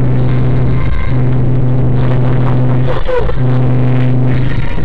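Motor vehicle sound: a loud, steady low hum that breaks off briefly about a second in, again about three seconds in, and near the end.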